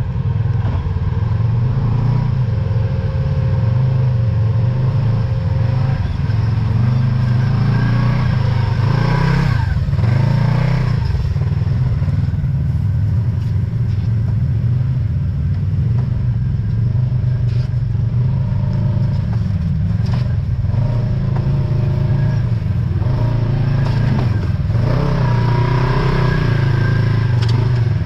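Side-by-side UTV engine running continuously while driving on a trail, its pitch rising and falling a couple of times with the throttle, around ten seconds in and again near the end.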